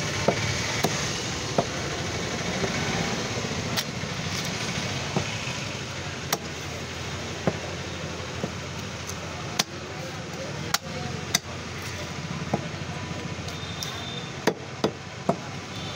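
Heavy butcher's cleaver chopping through a lamb's head on a chopping block: about fifteen sharp single strikes at uneven intervals, three in quick succession near the end. A steady background din runs underneath.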